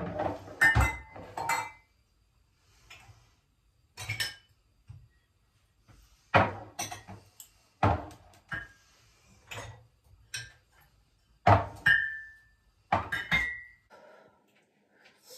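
Kitchen clatter of pots, lids and utensils: a dozen or so separate knocks and clinks with pauses between, a few leaving a short ringing note.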